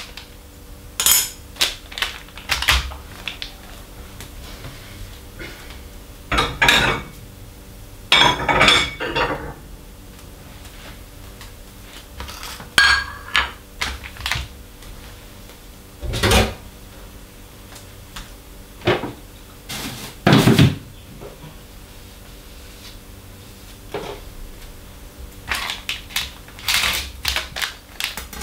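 Kitchen utensils and dishes handled on a countertop during food prep: irregular clinks, knocks and short clatters, with a faint steady hum underneath.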